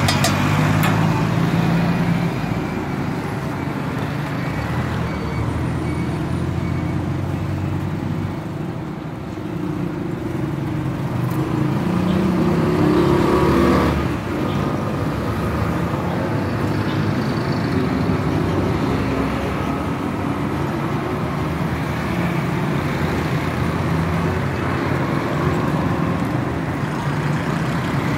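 Road traffic: the engines of passing auto-rickshaws and other vehicles running steadily, with one passing louder about halfway through.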